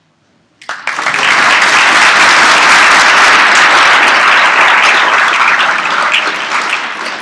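Audience applauding, breaking out suddenly under a second in, holding steady, and dying away near the end.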